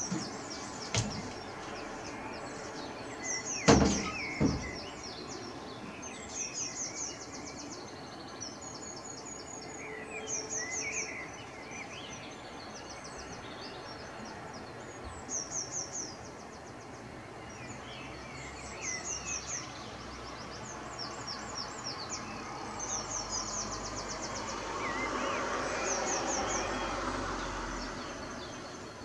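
A songbird repeating a short, high trill every second or two, with softer chirps lower down. Two sharp knocks come about four seconds in, and a broad rushing sound swells and fades near the end.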